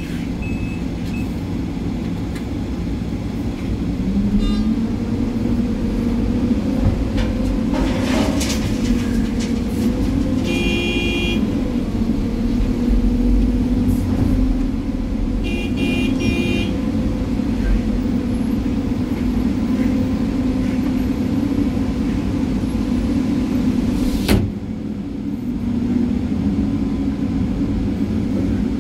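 Excavator engine running steadily under working load, heard from inside the cab, its revs rising about four seconds in. Two short horn beeps sound about eleven and sixteen seconds in, and sharp knocks come near eight seconds and again near twenty-four seconds.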